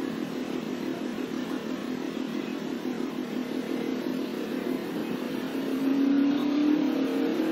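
A motor vehicle engine running with a fast, even flutter, its pitch rising about six seconds in.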